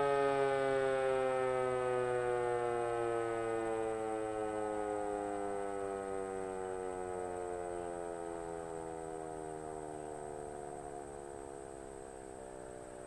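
ASC OM-120 nine-port mechanical warning siren winding down: its tone slowly falls in pitch and fades steadily as the rotor coasts to a stop after the alert signal.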